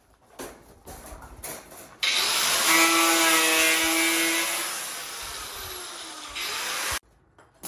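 Handheld power drill whirring at the rebar mesh, twisting tie wire where the bars cross. It starts abruptly about two seconds in, holds a steady whine, then falls in pitch and cuts off sharply about two seconds before the end. Before it there are only light scattered knocks.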